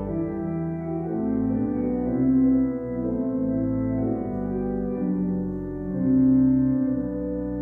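Instrumental introduction to a hymn: slow, sustained chords on a keyboard instrument, changing about once a second, before the singing begins.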